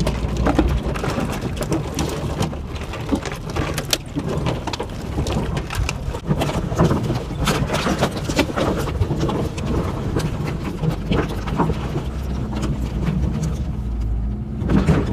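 Hyundai Galloper 4x4 forcing its way through dense brush: its engine runs steadily at low speed while branches and twigs scrape, crackle and snap against the bonnet and bodywork in a constant irregular clatter.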